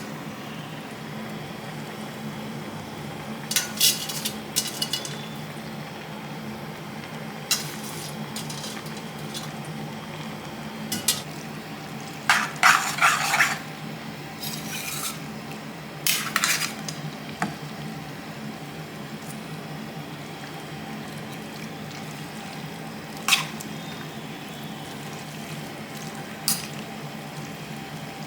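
A spoon stirring pasta into a sauce in a pan, with scattered scrapes and clinks against the pan, the loudest run about halfway through, over a steady low hum.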